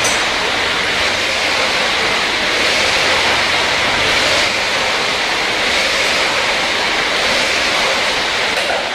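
Air-resistance flywheel of a dragon boat paddling ergometer spinning with a steady whoosh as the paddle cord is pulled through demonstration strokes.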